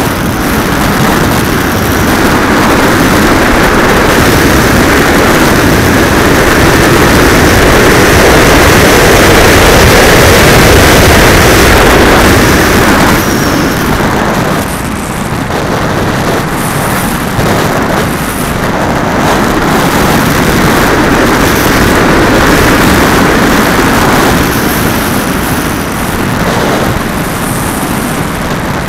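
Loud rush of airflow over a radio-controlled model airplane's onboard camera microphone in flight. It is an even noise with no clear motor pitch, swelling and easing as the plane manoeuvres.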